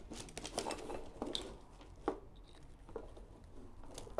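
Handling of a xenon headlight control wiring harness: cables rustling and stiff new plastic connector plugs being pushed together, with several faint clicks and scrapes. The connectors are new and tight.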